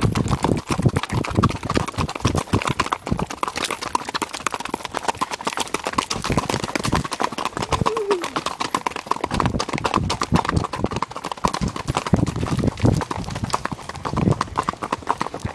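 Tennessee walking horse's hooves striking a gravel road at the rack, a fast, even four-beat gait: a rapid, steady run of hoofbeats.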